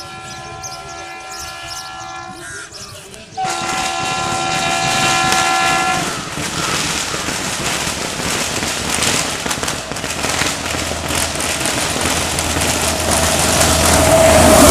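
WAP-7 electric locomotive sounding two long air-horn blasts, the second louder and cut off about six seconds in. It is followed by the rising rush and rumble of the train approaching at speed, with firecrackers crackling sharply.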